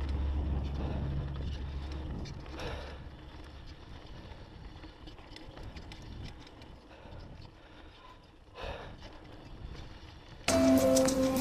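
Background music fades out over the first couple of seconds, leaving the faint rattle and tyre noise of a mountain bike running down a dirt trail, with scattered clicks and knocks. Music cuts back in suddenly near the end.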